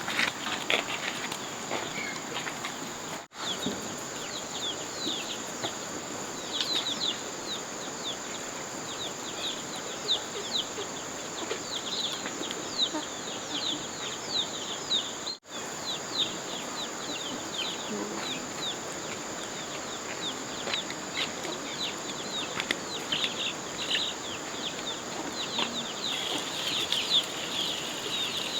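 Chickens, mostly many short, high, falling peeps, over a steady high insect drone; the sound cuts out briefly twice.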